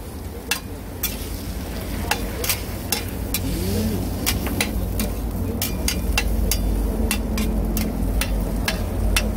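Metal spatula clinking and scraping against a flat-top steel griddle as fried food is chopped and pushed together, a sharp click every second or so, over a faint sizzle. A low rumble grows louder in the second half.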